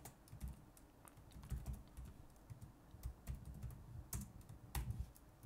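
Computer keyboard typing: faint, irregular keystrokes, with a few sharper key presses past the middle.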